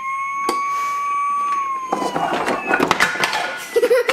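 A child's high, held siren-like wail: it rises, holds steady, then slowly falls away about two seconds in. It gives way to a breathy hiss mixed with clicks of wooden toy trains being pushed along wooden track.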